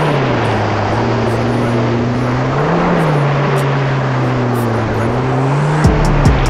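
Engine of a 2017 Kawasaki SX-R 1500 stand-up jet ski, a four-cylinder four-stroke, running under throttle over a steady rush of wind and water. Its pitch drops in the first half-second, rises briefly about three seconds in, then settles lower again.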